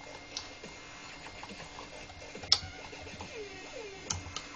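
Handling noise from the soldering station's opened case and front-panel circuit board: a few sharp clicks and knocks as parts are moved in the hands, the loudest a single sharp click about halfway through. Two short falling squeaks come near the end.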